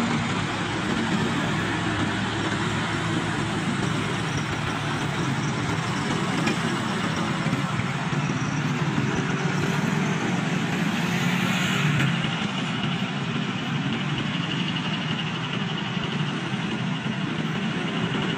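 Mixed road traffic on a steep uphill: truck, car and motorcycle engines running steadily as the vehicles pass close by, with a brief higher-pitched passage a little before the middle.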